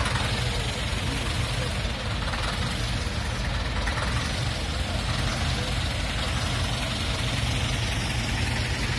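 Tractor engine idling with a steady low rumble.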